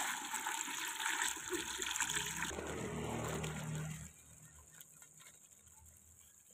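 Water being poured from a bucket into a plastic bucket, splashing loudly for about two and a half seconds, then a lower, duller pour, fading to a faint trickle after about four seconds.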